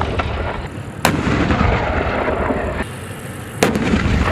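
A T-34 tank running with a heavy low rumble, broken by two sharp blasts, about a second in and again near the end, each followed by a long roar of noise.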